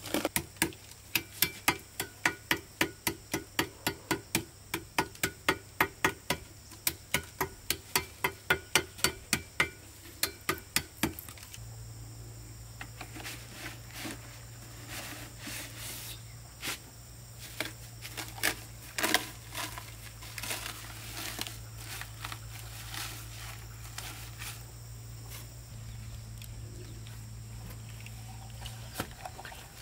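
Plastic pot moulds being worked loose from freshly cast cement-and-stone flower pots. For about the first eleven seconds there is quick, even knocking, some three knocks a second, each with a short hollow ring. After that come scattered scrapes, taps and plastic crinkles.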